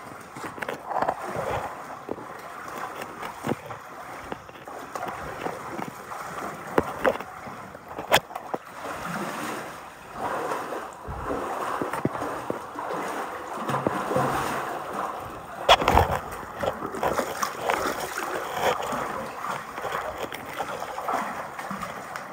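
Water sloshing and splashing as people wade chest-deep through a flooded cave passage, with a few sharp knocks, the loudest about two-thirds of the way through.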